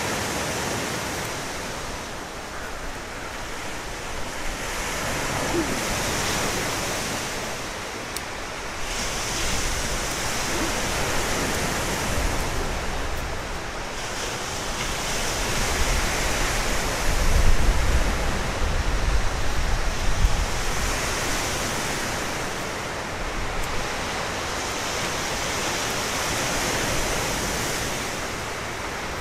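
Lake Superior surf washing onto the shore: a steady rush of breaking waves that swells and eases every few seconds. A low rumble of wind on the microphone comes in a little past the middle.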